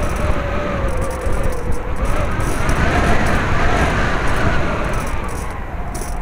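Electric model airplane's motor and propeller whining in flight, the pitch wavering and climbing about halfway through as the throttle changes, over a steady rumble of wind on the onboard microphone.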